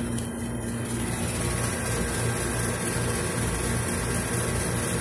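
Steady low machine hum with an even hiss over it.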